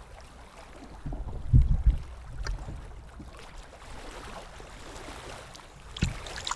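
Shallow seawater sloshing and splashing among rocks and seaweed as a hand dips a caught mackerel into it, with a few loud low bumps about a second and a half in and again near the end.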